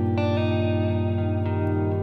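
Background music: electric guitar with effects, notes changing every half second or so over a steady bass.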